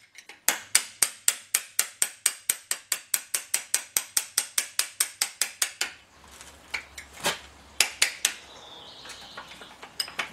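Hammer tapping a steel punch in quick, even strokes, about five a second, driving the wedge-type retaining key out of a Dana 30 front axle's disc-brake caliper. About six seconds in the steady tapping stops, and a few separate knocks follow.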